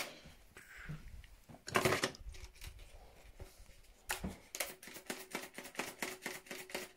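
Clattering of things being handled while rummaging for cleaning supplies: one louder knock about two seconds in, then a quick run of sharp clicks and rattles, about five or six a second, over the last three seconds.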